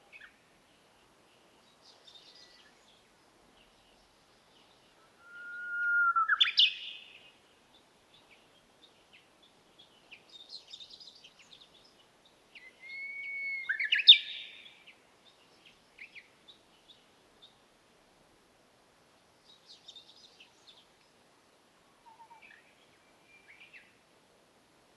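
Early-morning birdsong: two loud songs, each a held whistled note ending in a quick upward flourish, with faint chirps from other birds between them.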